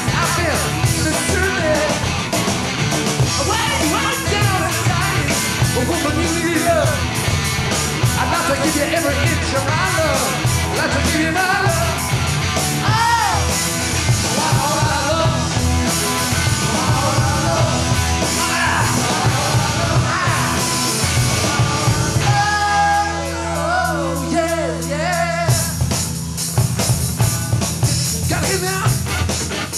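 Live hard-rock band playing: a male lead voice sings over electric guitar, bass and drums. About two-thirds of the way through, the bass and drums drop away for a few seconds, leaving the voice over sustained chords, and the full band comes back in near the end.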